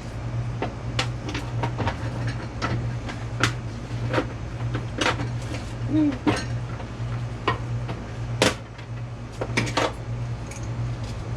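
Irregular clinks and knocks of metal parts being handled during an air compressor teardown, over a steady low hum.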